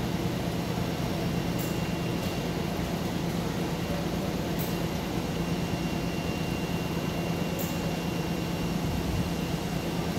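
Presstek Dimension 225 computer-to-plate system running: a steady machine hum with a thin constant high whine, and a faint short high tick about every three seconds.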